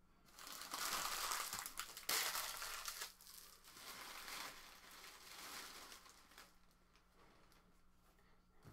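Plastic wrapping of sealed sports-card packaging crinkling and tearing as it is opened by hand, loudest in the first three seconds, with a fresh rip about two seconds in, then quieter rustling that dies away.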